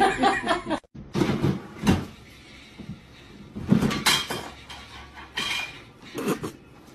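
A cat's call cuts off under a second in; then a cat clambering on a swing-top plastic trash can knocks its lid and bin, a string of separate knocks and clatters with the loudest about four seconds in.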